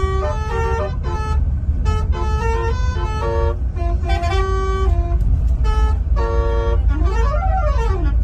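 Indonesian 'telolet' bus horn, a set of multi-tone air horns, playing a quick tune of short stepped notes over a steady low rumble. Near the end one tone sweeps up and back down like a siren.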